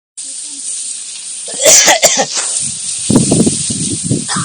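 A crow making harsh, human-like coughing sounds: two or three quick loud cough blasts about a second and a half in, followed by lower, broken throaty sounds, over a steady hiss.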